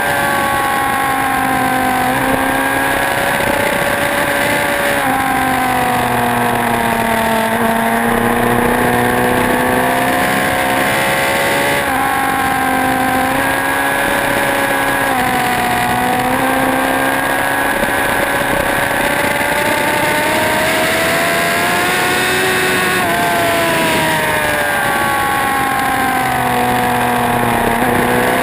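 Motorcycle engine being ridden hard on a racetrack, revs rising and falling over and over, with sudden jumps in pitch at the gear changes, under a steady rush of wind noise.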